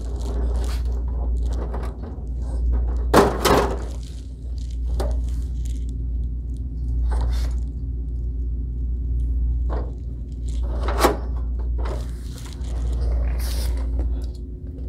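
Knocks and clunks of plastic and metal parts as a Ricoh copier's finisher is reattached to the machine, the loudest about three seconds in and another near eleven seconds. A steady low hum runs underneath.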